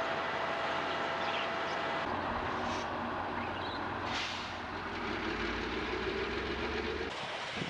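Heavy rail track-maintenance machinery running steadily. For about the first two seconds a whine sits over the noise. After a cut, a Loram ballast cleaner takes over with a deep diesel rumble.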